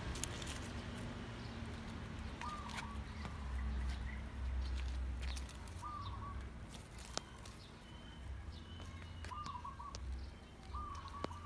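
A small bird chirping short warbled calls every few seconds over a steady low rumble, with a few faint clicks.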